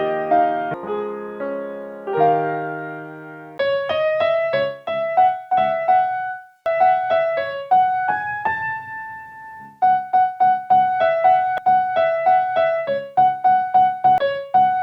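Background piano music. Sustained chords for the first few seconds give way to a run of short, quickly repeated notes.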